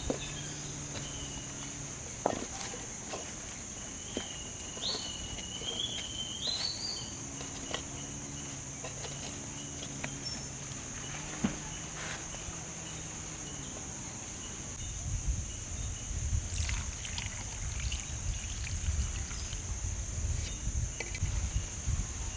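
A steady, high-pitched insect chorus of crickets or cicadas, with a few sharp clicks or knocks and a brief warbling call about five seconds in. Low rumbling sets in about two-thirds of the way through.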